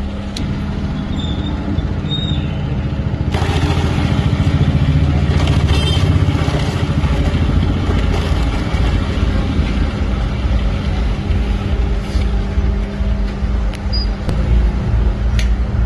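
Motor-driven chopping machine running with a steady hum and rumble. About three seconds in, a louder, rougher noise joins and continues.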